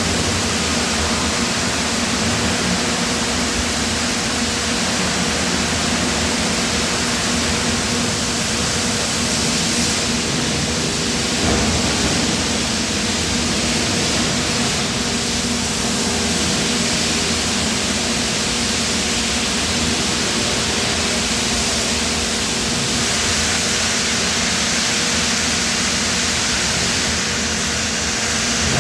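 Steady industrial machinery noise in a die-casting shop: a continuous even hiss with a low, constant hum underneath.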